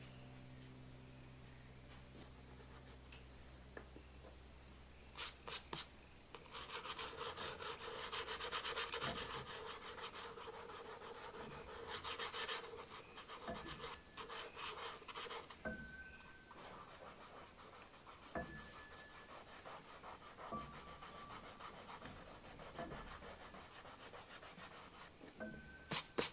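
Tissue rubbing and blending soft pastel over paper in a dense, continuous rub, then shorter, fainter scratchy strokes of a conte stick drawing on the paper. A few sharp taps come just before the rubbing and again near the end.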